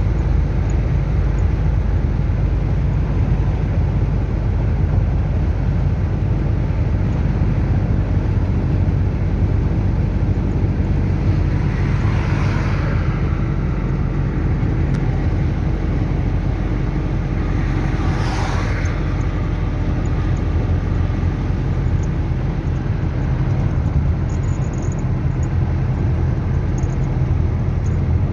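Chevrolet D-10 turbo diesel engine running steadily, the engine said to be making a strange noise. Two brief whooshes rise and fall a little before halfway and about two-thirds of the way through.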